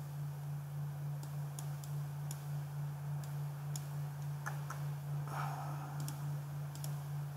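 Computer mouse clicking, a dozen or so scattered single clicks, over a steady low electrical hum, with a brief soft rustle about five seconds in.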